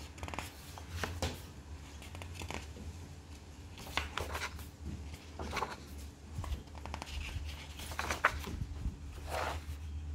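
Pages of a paper colouring book being turned by hand: several rustling swishes and flaps of paper, one after another.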